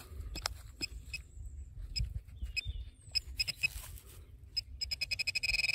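Metal-detecting pinpointer probing a freshly dug hole: scattered short high beeps over rustling and clicks from the soil, then near the end the beeps speed up into a steady tone as the probe closes in on the target.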